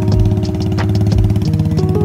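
Background music with a steady beat and held notes that step in pitch, over the low running of a motorcycle engine on the move.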